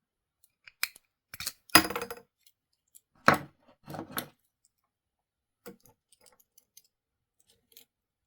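Small metal parts of a Zippo hand warmer clinking and scraping as its catalytic burner is pried off with a pocket knife. There are a few sharp clicks, two louder rattling clusters in the first half, then light ticks.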